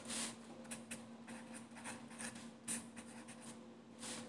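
A pen scratching on paper in short, faint strokes as figures are written out by hand.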